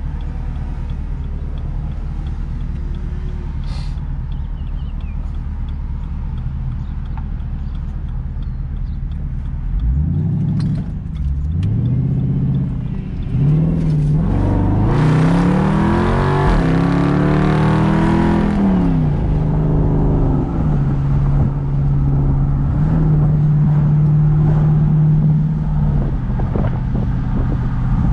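Straight-piped Jeep SRT V8 exhaust. It drones steadily while cruising, then about ten seconds in it accelerates hard, its pitch rising through several upshifts and loudest near the middle, before it drops back to a steady drone.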